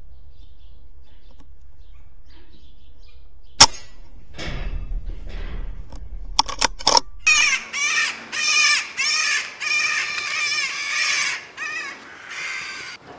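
A single sharp crack of a BSA Super10 .22 air rifle shot about three and a half seconds in, followed by a few seconds of scuffling noise. Then a run of repeated harsh alarm calls from the corvids around the cattle shed, stirred up by the shot.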